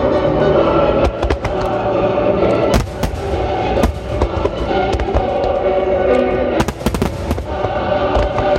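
Aerial fireworks shells bursting in a rapid, irregular string of sharp bangs and crackles, with a cluster of bursts about two-thirds of the way in. Sustained music plays loudly underneath.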